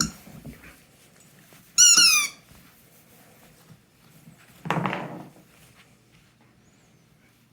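A rubber squeaky toy squeaks once, sharp and high, about two seconds in. A little under five seconds in, the pet guarding it gives a short, low growl.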